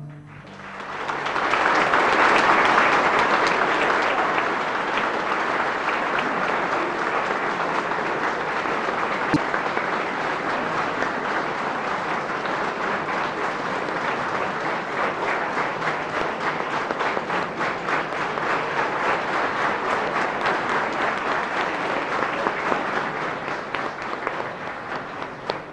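A large audience applauding at the end of a song. The clapping swells about a second in, is loudest over the next few seconds, and keeps up steadily until it dies down near the end.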